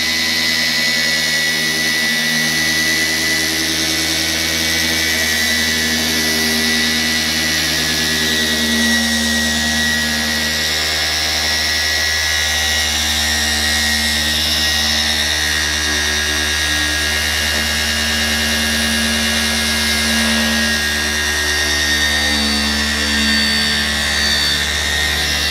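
Flex PXE 80 12.0-EC brushless 12-volt cordless mini polisher running flat out at speed 4, with a 3-inch foam pad working against a headlight lens. It gives a steady, even high whine.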